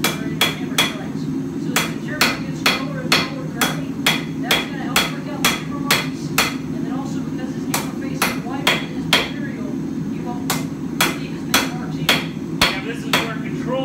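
Hand hammer striking hot mild steel on an anvil, drawing out a taper: runs of steady blows about two to three a second, with short pauses between runs. A steady low rush from the lit gas forge runs underneath.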